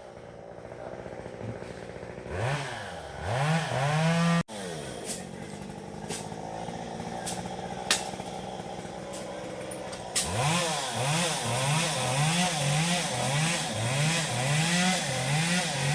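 Chainsaw engine revving up and down in repeated surges. After a quieter stretch it comes back louder about ten seconds in, rising and falling nearly twice a second.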